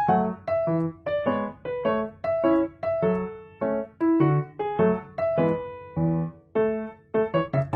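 Background music: a piano melody of quick, separate notes over simple chords.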